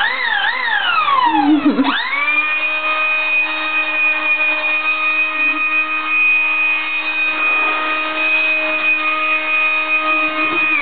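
Electric air pump running with a steady whine. Over the first two seconds its pitch wavers up and down and then falls, before it rises and settles to one steady pitch.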